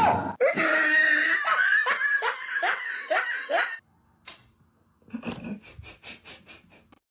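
A person laughing hard in rapid, repeated bursts that fall in pitch, for nearly four seconds; after a short pause, quieter laughter in quick, even bursts.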